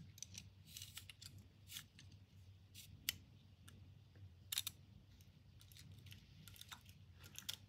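Faint scattered clicks and light scraping from a digital caliper being handled as its sliding jaw is pushed closed along the beam, with sharper clicks about three seconds in and about four and a half seconds in.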